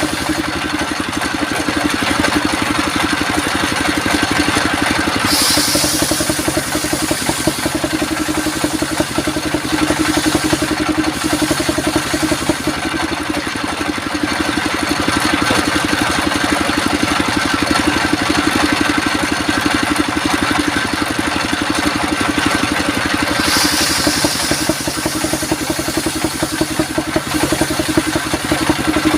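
Sawmill engine running steadily at a constant speed, with two brief spells of added high-pitched noise, one about five seconds in and another after about twenty-three seconds.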